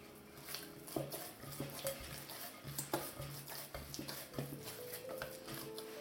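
Hands kneading soft, oiled yeast dough in a glass bowl: irregular squelching and soft knocks of knuckles against the glass.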